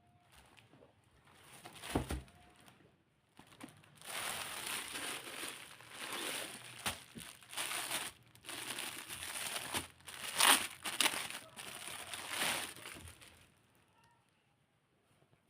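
Packaging crinkling and rustling as a parcel is handled and unwrapped, with a dull knock about two seconds in. The crinkling runs for about ten seconds and stops about two seconds before the end.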